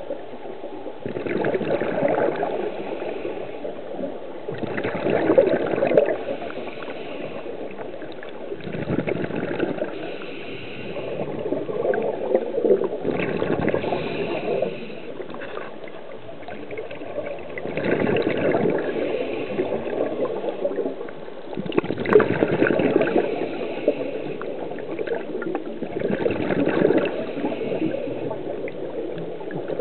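River water gurgling and rushing, heard underwater, swelling in surges about every four seconds.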